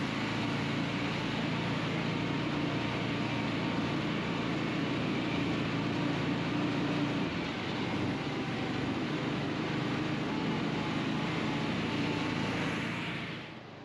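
Motor vehicle engine running steadily under way, with a constant rush of driving noise; the sound cuts off abruptly near the end.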